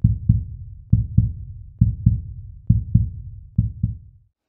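Logo intro sting made of deep double thumps like a heartbeat, about one pair a second, each thump dying away quickly. Five pairs in all, stopping shortly before the end.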